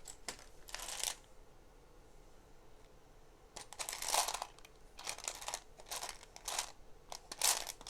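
Loose plastic Lego Technic pieces rattling and clicking as hands rummage through them for a part: one short burst about a second in, then a run of rustling bursts from about three and a half seconds in.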